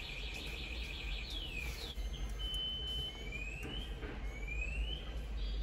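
A bird whistling: a couple of falling whistles, a short held note, then two rising whistles about a second apart, over a steady low rumble.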